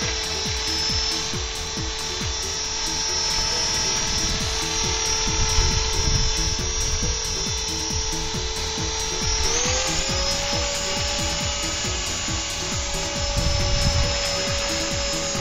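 Background music with a steady beat over the whine of an Exceed Blue Ray 450 electric RC helicopter's motor and rotors. About two-thirds of the way through, the whine glides up to a higher pitch and holds, as the headspeed comes up with throttle-up switched on.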